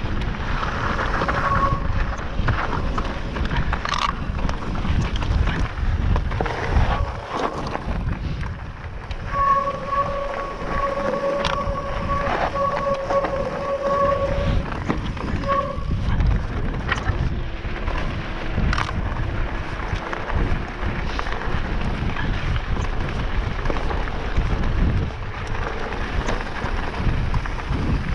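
Mountain e-bike rolling fast down a rocky gravel path: continuous tyre rumble and wind noise, with rattles and sharp knocks from the bike over stones. The hot disc brakes squeal with one steady tone for about five seconds near the middle, and briefly a few other times.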